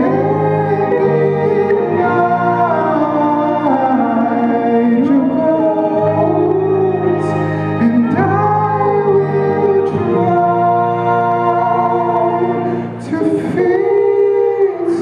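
A live band playing a song with singing, backed by piano, acoustic and electric guitars and cajón.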